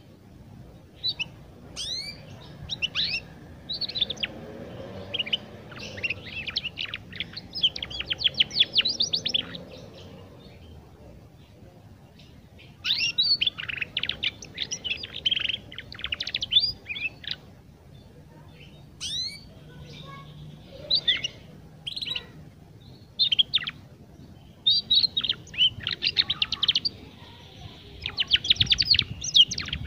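A young domestic canary practising its song: phrases of rapid chirps and twittering trills, a few seconds each, broken by short pauses.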